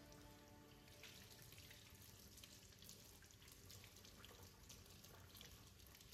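Faint running water from a kitchen tap, pouring over a glass jar being rinsed by hand and splashing into a stainless steel sink.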